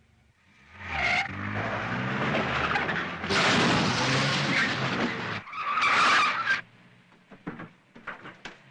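Car engine running, then a long tyre screech as the car skids, with a shorter squeal about six seconds in. A few small clicks follow near the end.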